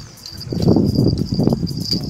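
Steady high-pitched insect buzzing. From about half a second in, a loud, irregular low rumbling noise lies over it.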